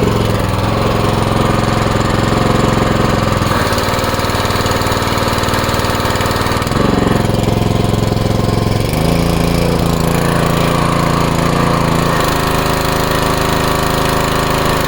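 Westinghouse WPX3200 gas pressure washer's small engine running on a test after its pump was refitted with the missing Woodruff key. Its speed shifts up and down to a new steady pitch several times, every two to three seconds.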